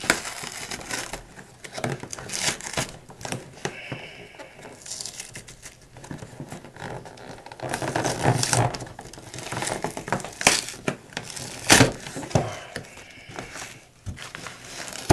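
Stiff plastic packaging being handled and pried open by hand: irregular crinkling, tearing and clicking, busiest about eight seconds in, with one loud sharp snap near twelve seconds. The packaging is hard to open, childproof-style.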